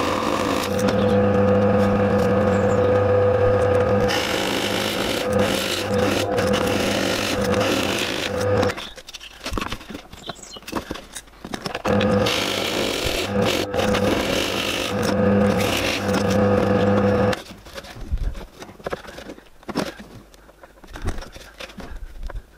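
Pillar drill motor running steadily while a Forstner bit bores into plywood, with the scrape of the cutting. It stops after about nine seconds, runs again about three seconds later, and stops once more about five seconds before the end, leaving only faint handling sounds.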